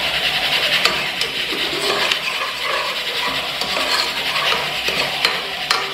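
Chopped garlic and onion frying in oil in an aluminium pot, a steady sizzle as they brown, with a metal spoon stirring and clicking sharply against the pot a few times.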